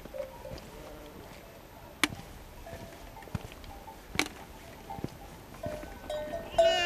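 Sheep bleating, faint and intermittent at first, then one loud bleat starting near the end. A couple of sharp clicks, about two seconds apart, stand out in between.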